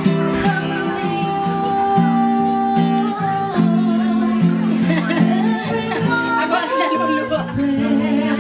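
Serenade music: acoustic guitar played with a voice singing a melody over held notes.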